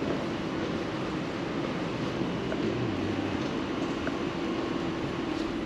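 Steady indoor room noise in a game arcade: an even hiss with a constant low hum, from ventilation and idle machines.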